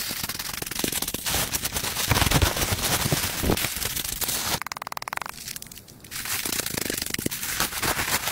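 Plastic tarp crinkling and crackling under boots as it is trodden and shuffled over dry leaf litter, with dense sharp crackles throughout.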